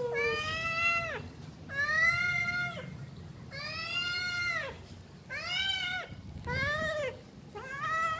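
Tabby-and-white kitten meowing over and over: about six long calls, each rising then falling in pitch, with short gaps between. The kitten is hungry.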